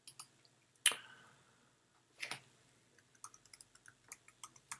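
Two sharp clicks about a second and a half apart, then a quick run of light computer keyboard key clicks starting about three seconds in: a password being typed.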